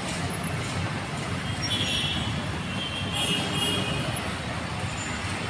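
Busy street traffic at a railway level crossing, with a steady mix of car and auto-rickshaw engines. Brief high-pitched tones sound twice, about two and three seconds in.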